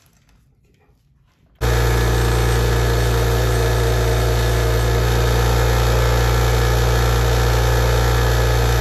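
Bench grinder running at a steady hum with its wheel grinding a small hand-held metal part, throwing sparks. It comes in suddenly about a second and a half in, after near quiet.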